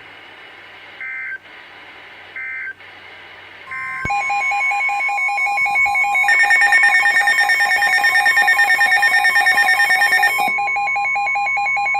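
Emergency Alert System SAME data sent as three short warbling digital bursts, each about half a second long, marking an alert transition on NOAA Weather Radio. About four seconds in, the steady 1050 Hz weather radio warning alarm tone starts, with a receiver's rapid pulsing alert beeps over it. The beeping is loudest in the middle and eases off near the end.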